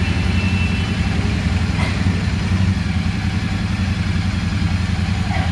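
Royal Enfield Super Meteor 650's parallel-twin engine idling steadily, with an even, unchanging beat.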